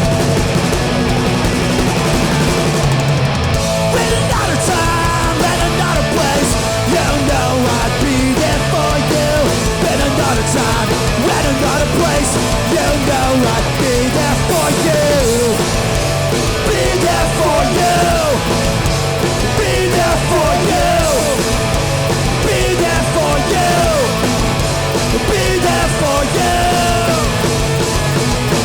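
Hardcore punk band playing live at full volume: distorted electric guitars, bass and drums. From a few seconds in, a melody line slides up and down in pitch over the top.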